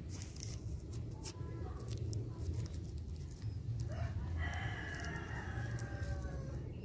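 A rooster crows once, a long, slightly falling call starting about four seconds in and lasting about two and a half seconds. Light clicks and crinkles of thin plastic being handled and a steady low rumble run underneath.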